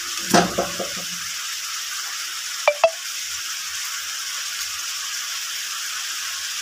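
Bitter gourd, onions and tomatoes sizzling steadily in hot oil in a pan as they are stirred with a perforated steel spoon. A dull knock comes just after the start, and the spoon clicks sharply against the pan twice about three seconds in.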